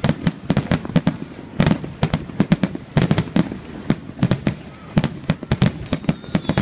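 Fireworks display going off in a dense barrage: sharp bangs, several a second, of varying loudness with no let-up.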